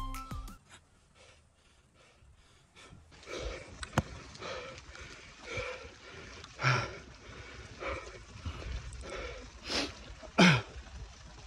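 Cyclist breathing hard while pedalling uphill, panting roughly once a second, with two louder exhales, the last one voiced and falling in pitch near the end. A single sharp click about four seconds in.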